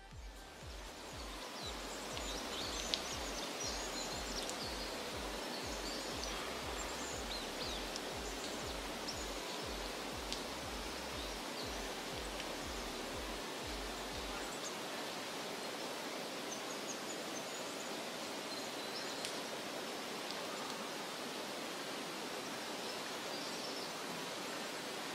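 Steady rush of flowing river water with scattered high bird chirps. A low beat of background music runs under it and stops a little past halfway.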